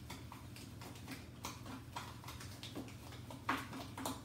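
A spoon stirring an olive-oil and herb seasoning mix in a small glass bowl, clicking and tapping against the glass at irregular intervals, with one louder clink about three and a half seconds in.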